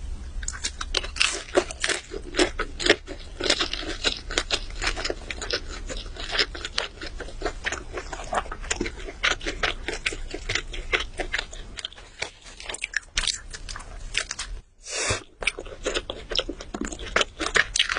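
Close-miked eating sounds: rapid, irregular biting and crunchy chewing of food, with a brief pause about fifteen seconds in.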